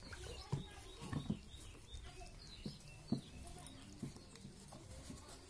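A few soft, irregular knocks of bowls and utensils being handled on the ground, with faint bird chirps.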